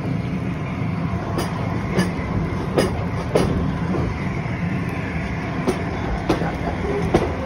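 Steam-hauled passenger train running along the line, heard from an open coach window: a steady rumble with the wheels clacking over rail joints in pairs.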